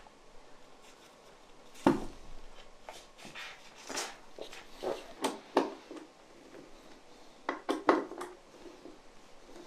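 Scattered clicks and knocks of a plastic LED projector housing and its wire connectors being handled and pushed together, with one sharper knock about two seconds in.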